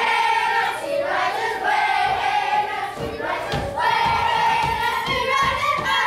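A song with a group of voices singing long held notes, with a few low thumps from dancing feet on the stage floor in the second half.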